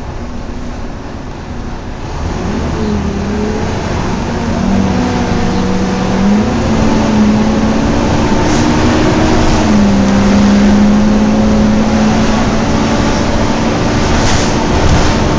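Volvo B9TL double-decker bus heard from a seat inside while it drives: the engine and cooling fan make a steady whine that steps up and down in pitch, growing louder over the first several seconds. There are a couple of light rattles in the second half.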